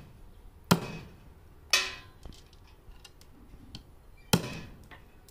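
A curved knife blade chopping the tips off small freshwater snail shells on a wooden block: three sharp chops, under a second in, near two seconds and past four seconds, with faint clicks of shells between.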